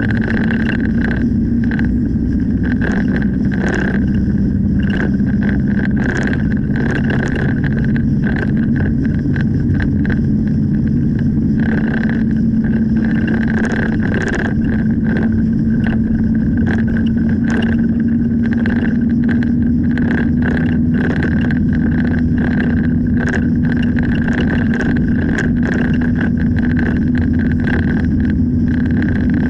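A car driving, heard from inside the cabin: a steady engine and road hum whose pitch rises slowly, with many small ticks and rattles scattered through it.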